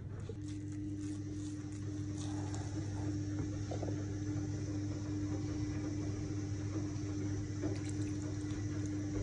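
Steady low hum with a steady higher tone throughout, under faint scrapes and ticks of a wooden spatula working thick chocolate cake batter in a bowl. Near the end, water is poured into the batter.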